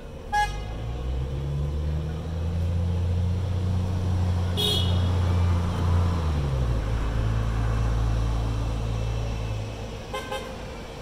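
Vehicle horns giving three short toots, near the start, about midway and near the end, over a city bus's engine passing close by, its low drone dropping in pitch about two-thirds through.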